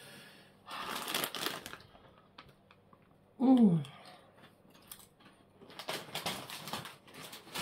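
Someone chewing potato chips: irregular crunching and crackling clicks, loudest about a second in and again over the last couple of seconds. A short hummed 'mm' comes about three and a half seconds in.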